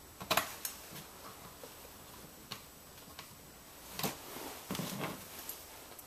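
Scattered small clicks and taps of a screwdriver and fingers on a laptop's plastic screen bezel as its two bottom screws are driven in, a few sharp ticks spread over several seconds.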